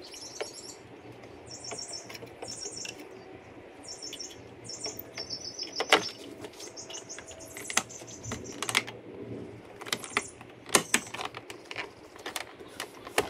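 A carbon-fibre mirror cap being handled and pressed onto a BMW M2 door mirror: light plastic taps and rubbing, with several sharp snaps as its clips click into place. High-pitched chirping in the background, mostly in the first half.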